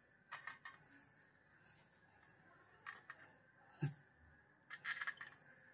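Faint taps and scrapes of crispy fried kababs being set down on a stainless steel plate: a few short, separate clicks, with one duller knock about two-thirds of the way in and a quick cluster of scrapes near the end.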